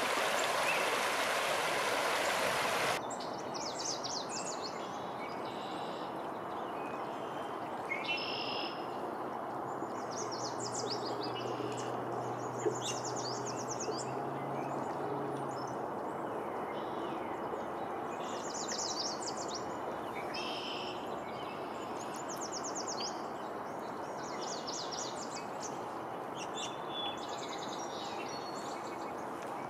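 A shallow stream runs over rocks for the first few seconds, then cuts off abruptly. After that, a chorus of songbirds sings, with short chirps and rapid trills every second or two over a faint hiss.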